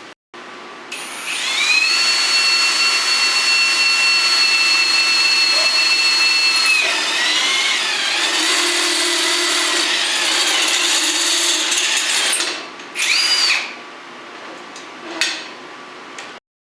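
Electric drill spinning up to a steady high whine, then its pitch wavering and sagging as the bit bites in, while a new bolt hole is drilled. It stops, gives a second short spin-up and stop, and makes a brief blip near the end.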